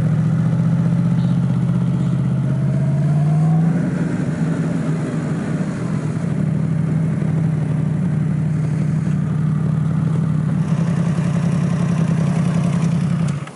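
Yamaha MT-10 SP's crossplane inline-four engine running at low speed as the motorcycle rolls in. The engine note drops about four seconds in, then holds a steady low note as the bike comes to rest at idle.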